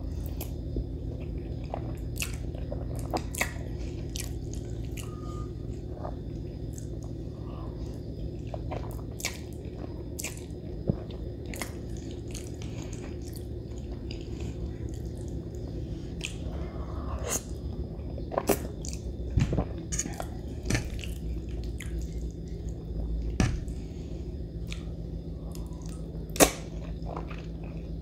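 Someone chewing spaghetti marinara, with many scattered sharp wet clicks and smacks from eating over a steady low hum.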